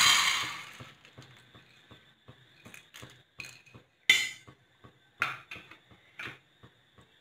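Split Bengal gram (chana dal) poured from a bowl into a metal kadai: a loud rush of dried grains rattling into the pan at the start, dying away over about a second. Then scattered faint clicks and a few sharper ticks about once a second as the last grains drop in.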